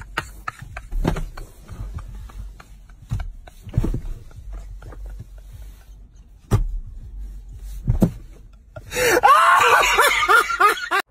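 A man laughing hard: scattered short gasping bursts, then near the end a loud run of high, wavering peals of laughter that cuts off suddenly.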